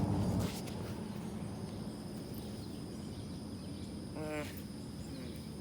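Outdoor pond-side ambience with a steady faint high insect drone. A louder low rustling or handling noise cuts off about half a second in, and a single short pitched call, like a brief voice sound, comes about four seconds in.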